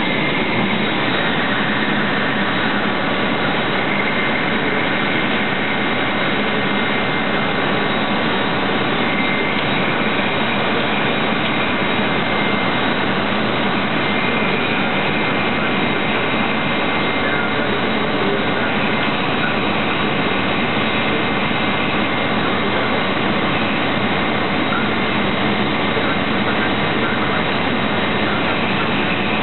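Haas TL-3 CNC lathe running steadily while single-point threading, a constant loud machine noise with a faint high tone coming and going several times.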